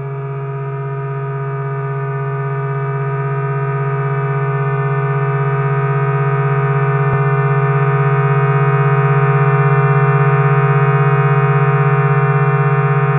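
A sustained, droning musical note rich in overtones, swelling slowly louder, with a fast even pulse in its level.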